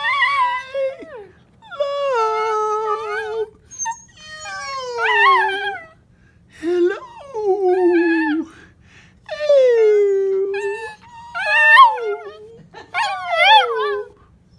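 Schipperke dog howling when asked to sing: a series of about seven drawn-out howls, each a second or two long, with pitch that wavers and slides, separated by short pauses.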